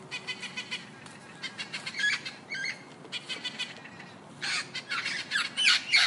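Parrots squawking: a run of short calls in separate bursts, loudest in the last two seconds.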